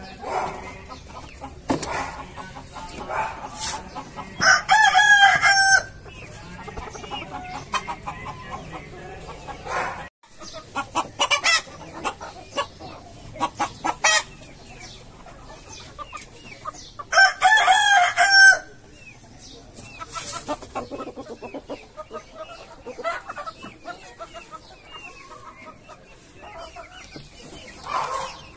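Chickens clucking, with a rooster crowing twice, each crow about a second and a half long and the loudest sound here.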